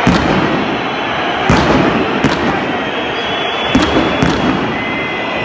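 Five sharp pyrotechnic bangs from firecrackers set off by fans, at irregular intervals. They sound over the steady noise of a large stadium crowd.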